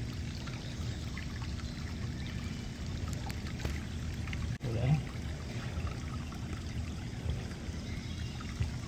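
Steady rush of running creek water, with a short vocal sound from a man about five seconds in.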